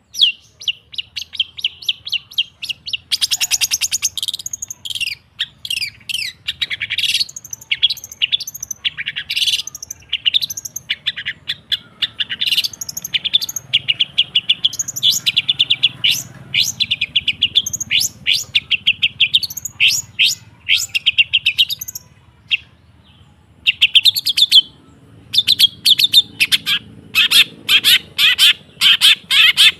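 Long-tailed shrike singing in fast runs of sharp, chattering notes, with a pause of about a second and a half about three-quarters through.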